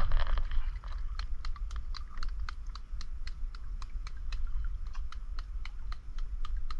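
Fingers picking at and cracking the shell of a small sea creature close to the microphone: a quick, uneven run of sharp clicks and snaps, several a second, over a low rumble of wind on the microphone.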